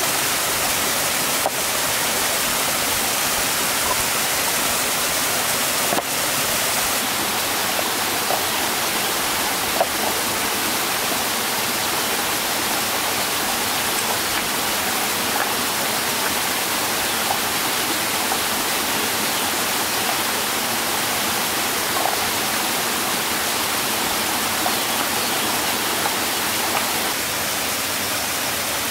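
Steady rushing water noise, with a few faint clicks over it.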